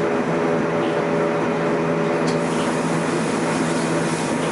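Zugspitze cogwheel train running, heard from inside the carriage: a steady hum of motor tones over a constant rolling rumble.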